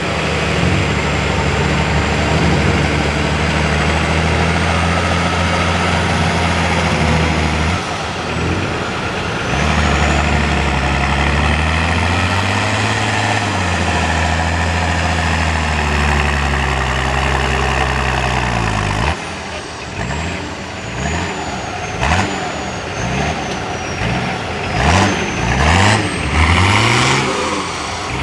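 Off-road 4x4 truck engine working hard while stuck bonnet-deep in a mud bog. It runs steadily, drops away briefly about eight seconds in, then picks up again with one rise and fall in pitch. In the last third it is revved in repeated short bursts, with a few sharp knocks.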